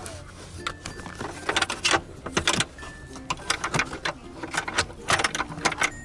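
Hands working on a car's seat-belt anchor and floor trim: uneven clicking and rattling of metal and plastic parts being handled, in short clusters.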